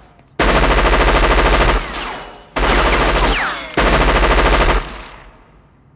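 Film sound effect of automatic machine-gun fire: three rapid bursts, the first about a second and a half long and the next two shorter. Each burst trails off as it fades.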